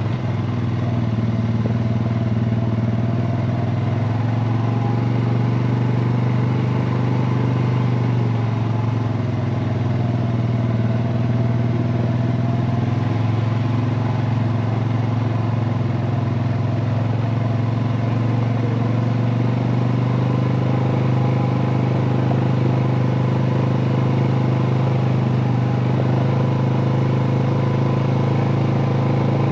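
Polaris 570's single-cylinder engine running steadily while the machine drives along, with no rise or fall in speed.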